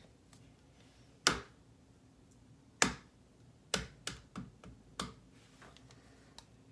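A raw egg being knocked against a hard surface to crack it: about six sharp taps spaced irregularly over a few seconds. The taps are not hard enough to break the shell.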